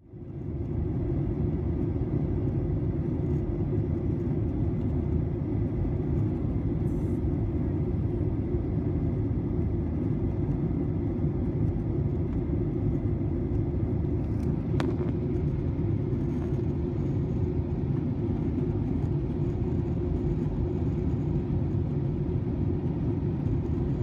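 Airliner cabin noise in flight: a steady low rumble of engines and rushing air, with a faint steady whine above it. A single sharp click about fifteen seconds in.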